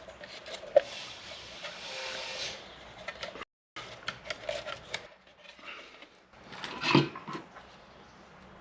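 Plastic fuel pump assembly parts being handled and fitted together: small clicks and rubbing, a stretch of hissy scraping early on, and a single louder knock about seven seconds in.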